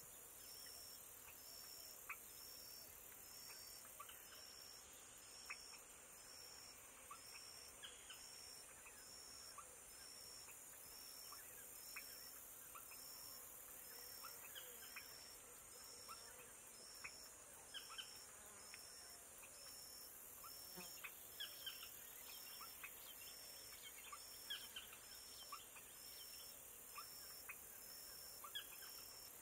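Faint marsh ambience: a steady high insect drone with a regular pulse a little more than once a second. Scattered short chirping calls rise and fall over it throughout.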